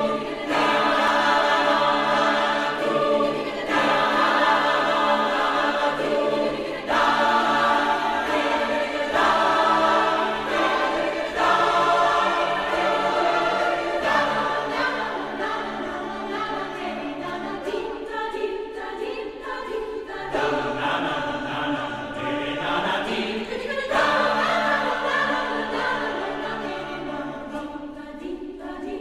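Choir singing in sustained, held chords, in phrases a few seconds long, laid as a soundtrack over a photo montage.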